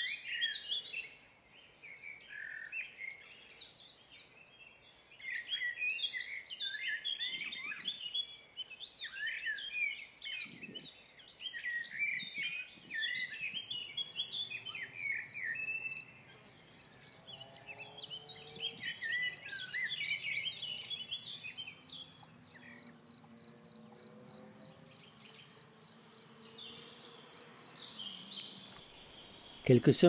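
A cricket singing a steady, high, rapidly pulsed song from about five seconds in, cutting off abruptly shortly before the end. Over the first half, several songbirds chirp and sing.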